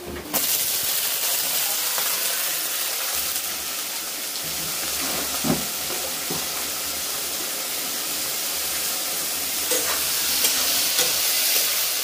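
Chopped zucchini tipped into hot oil in a steel wok, sizzling suddenly about a third of a second in and frying steadily after that. A few short knocks and scrapes of a metal spatula stirring come through the sizzle.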